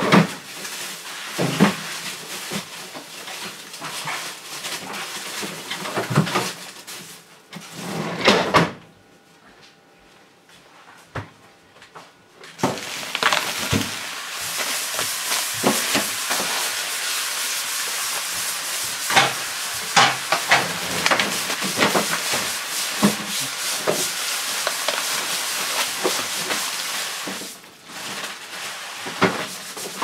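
Clattering and knocks of washing-machine parts being handled. Then, from about twelve seconds in, a steady hiss of a pressurised cleaning sprayer, with clicks and knocks over it; the hiss cuts out briefly near the end.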